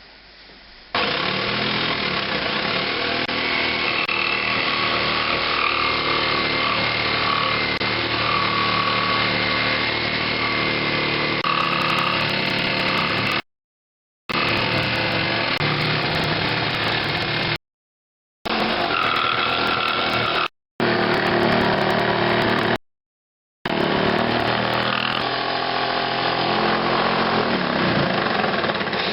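Electric power tool running under load while cutting into the wooden resonator guitar body, its pitch shifting as it works. It breaks off abruptly into silence several times.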